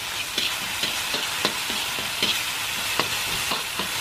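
Chili, shallot and garlic paste sizzling in hot oil in a wok, with a metal spatula scraping and knocking against the wok in irregular strokes, about two or three a second.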